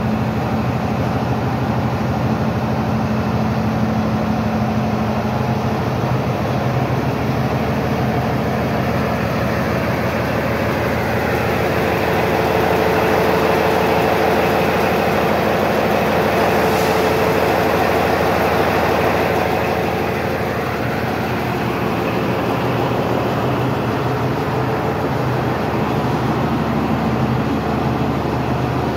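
Diesel engine of an M 286.0 railcar idling steadily with the railcar standing still. It grows louder for several seconds in the middle, where it is heard close up inside the engine compartment.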